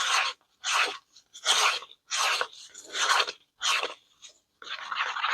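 A stir stick scraping the side of a mixing cup while mixing mica powder into resin: six slow scraping strokes, then faster, shorter strokes near the end.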